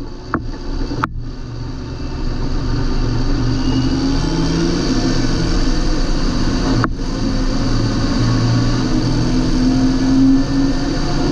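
John Deere 8320 tractor's six-cylinder diesel engine running steadily, getting louder about two seconds in, with a couple of brief breaks in the sound.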